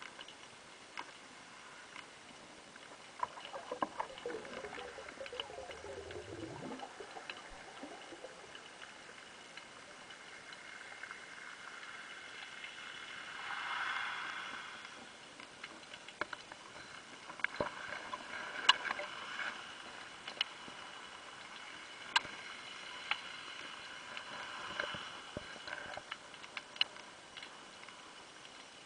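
Underwater ambience heard through a camera's waterproof housing: a faint steady hiss with scattered sharp clicks and knocks. A tone falls in pitch about five seconds in, and a broad swell of water noise rises and fades about fourteen seconds in.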